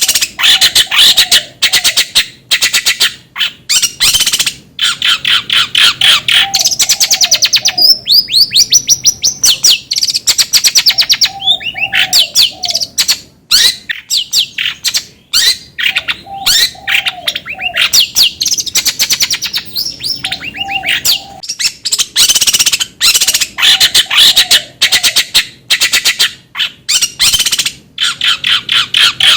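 Long-tailed shrike (cendet) singing: fast, loud, chattering runs of high notes with a short lower warbled phrase repeated every few seconds.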